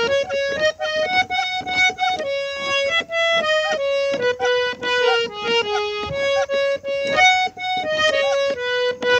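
Harmonium playing a folk melody in short stepped notes, with light clicks throughout.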